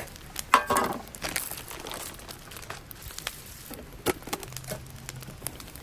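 Crinkling and rustling handling sounds with scattered light clicks and knocks. The loudest is a crinkly burst about half a second in.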